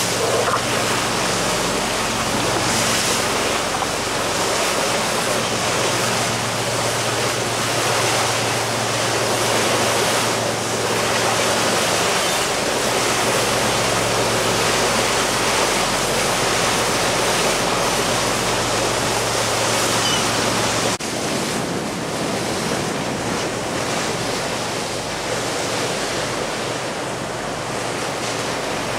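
Water rushing past a moving boat and wind on the microphone, over the steady low drone of the boat's engine. The sound changes abruptly about 21 seconds in, with the engine drone shifting.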